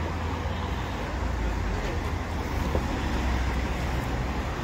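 Steady road traffic noise from cars on a busy town street, with a constant low rumble.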